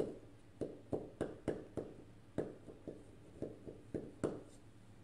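A knife blade knocking and scraping against the metal central tube of a chiffon cake tin as it is worked around the funnel to cut the cake free. Sharp, irregular taps come about three a second.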